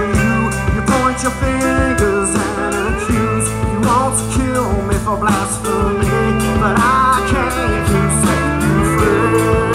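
Live rock band playing an instrumental passage: electric guitars, bass and drum kit with steady cymbal strokes, and a lead line that bends up and down in pitch.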